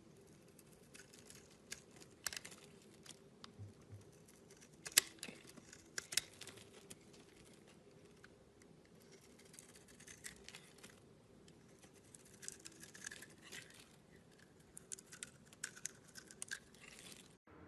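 Irregular light crackling and clicking, close up, with one sharper click about five seconds in and a cluster of crackles near the end.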